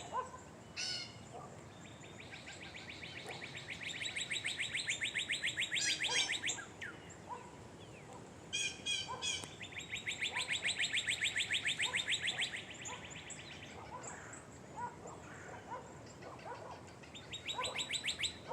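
Birds singing: a long, rapid, high trill that swells in loudness, sung twice at length and starting again near the end, with short high chirps and softer calls in between.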